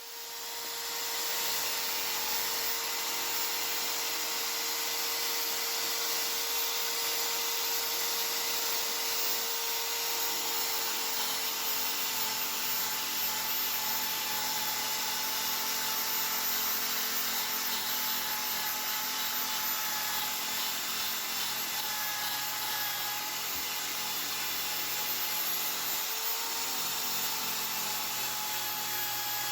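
Small high-speed power tool, such as a rotary tool or drill, running steadily: a constant whine over a hiss, starting abruptly at the outset.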